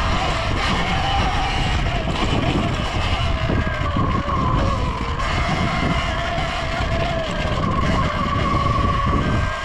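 Surron Ultra Bee electric dirt bike's motor whining, its pitch rising and falling with the throttle, over a steady low rumble of wind and tyres on dirt.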